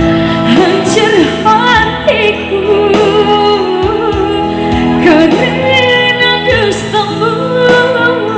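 A song: a singer's voice holding wavering notes with vibrato over a steady instrumental accompaniment.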